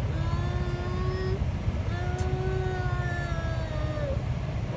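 A small child imitating a car engine with the mouth, a lip-buzzing "brrrm" with spit spraying, voiced as two long held notes, the second longer.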